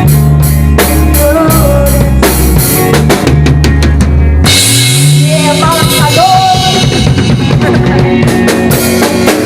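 Band playing an instrumental passage with drum kit, bass guitar and guitar, the drums loudest. The bass holds low notes, then slides upward and drops away about halfway, leaving drums and guitar.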